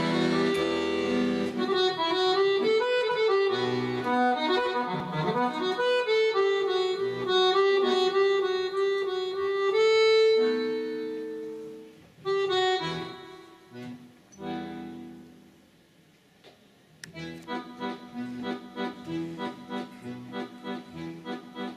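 Solo accordion playing the instrumental introduction to a song: a melody of held notes that slows and fades away about halfway through, a short pause, then a steady accompaniment of short repeated chords, about two a second.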